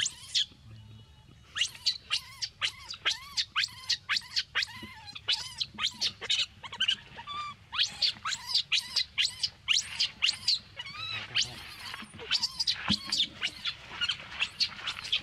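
A baby macaque screaming, a rapid string of short high-pitched cries, several a second, each rising and falling in pitch, with a brief pause about a second in.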